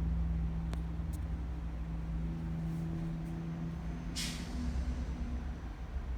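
A vehicle's engine idling steadily, with two small clicks about a second in and a short burst of hiss about four seconds in.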